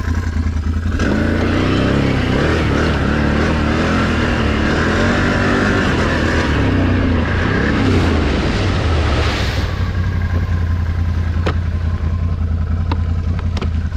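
Can-Am Renegade XMR 1000 ATV's V-twin engine running under load while riding, its pitch rising and falling repeatedly as the throttle is worked, over a steady low rumble. It steadies in the last few seconds, with a few sharp knocks.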